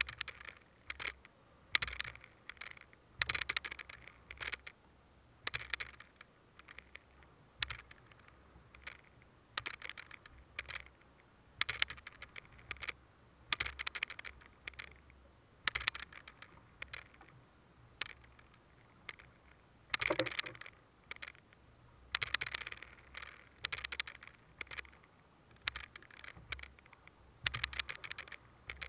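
Fishing handline scraping through a gloved hand as it is hauled in hand over hand: short scratchy strokes, roughly one a second.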